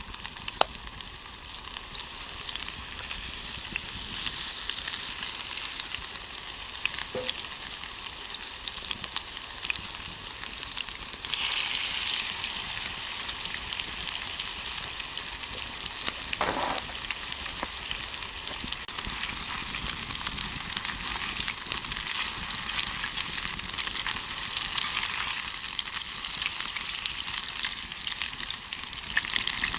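Food sizzling in a frying pan over a wood fire, a steady hiss with small pops and crackles that grows louder about eleven seconds in.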